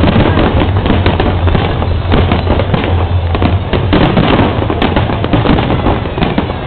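Aerial fireworks display: many shells bursting in quick succession, a loud, dense run of overlapping bangs.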